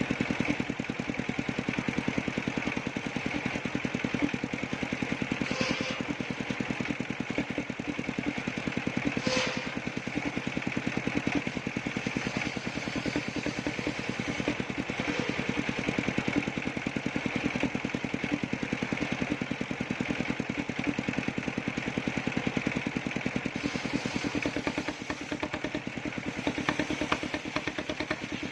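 Engine-driven sawmill circular saw running steadily, its motor beating fast and even, with a couple of short clicks early in the run.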